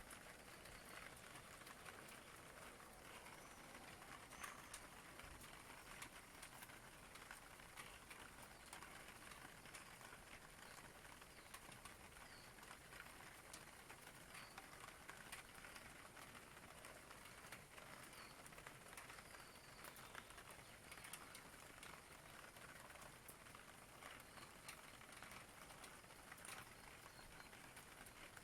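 Faint steady rain with scattered drop ticks. A few faint, high bird chirps come through it.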